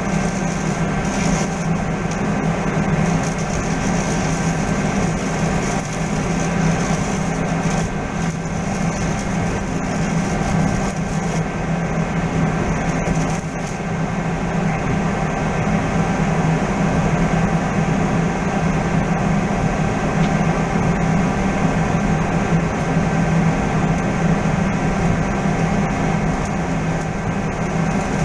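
Machinery running steadily, a continuous drone with a strong low hum and a few steady higher tones over a noisy haze.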